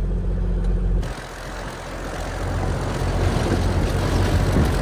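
Four-wheel-drive vehicle on an outback dirt track: a steady low engine drone heard from inside the cabin, then, about a second in, a sudden change to a rougher, noisier driving rumble that dips and then builds.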